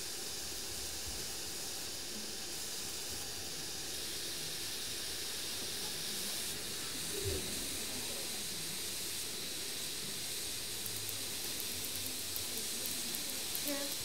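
Steady hiss of compressed air driving optical fibres through a long plastic duct from a fibre-blowing machine.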